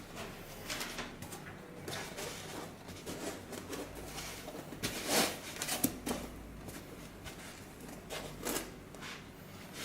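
Hands handling and adjusting a car head unit's swivel screen panel: scattered soft clicks, knocks and rustles, the loudest a pair of knocks a little past halfway.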